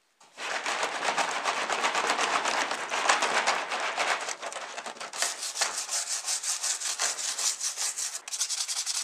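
Soapy water churning and splashing in a plastic tub. Then, from about five seconds in, a stiff plastic brush scrubs a toy car's plastic chassis under the suds in quick back-and-forth strokes.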